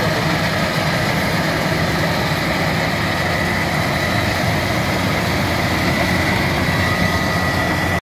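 Tracked rice combine harvester running as it harvests: a steady engine drone with a thin, constant whine above it.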